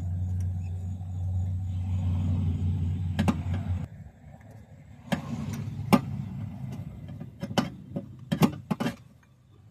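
Sharp metal clicks and taps, about six of them, from tools working a loosened spark plug out of its deep well in a 2012 Scion xD's engine, with a magnetic pickup tool and socket. Under them runs a low steady hum, loudest in the first four seconds.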